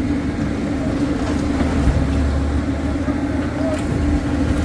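Heavy diesel engine running at a steady, even drone.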